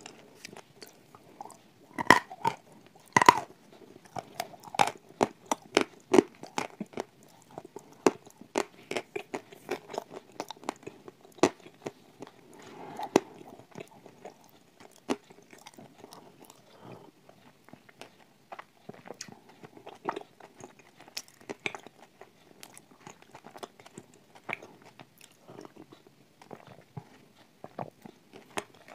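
A person biting and chewing hard, crunchy tiles: sharp crunches, loudest in two big bites about two and three seconds in, then softer, irregular crunching.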